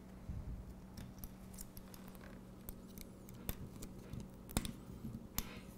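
Hex key turning in the screws of metal shaft collars on mecanum wheel shafts as they are tightened: irregular sharp metallic ticks and clicks over a steady low hum.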